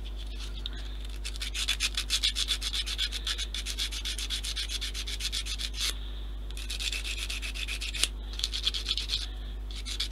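Fast, even rasping rub close to the microphone as hands handle and work rigging thread on a model ship. It starts about a second in, breaks off at about six seconds, then comes back in two shorter spells.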